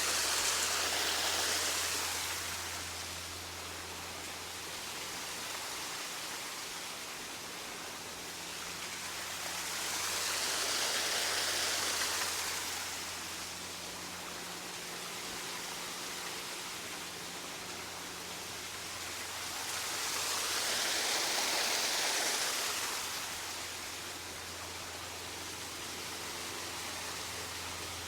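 Waterfall rushing: a steady, even noise of falling water that swells and eases about every ten seconds.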